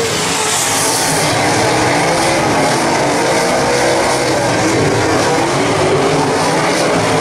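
Dirt late model race cars' V8 engines running hard around a dirt oval, several cars at once, their pitch rising and falling as they accelerate and pass.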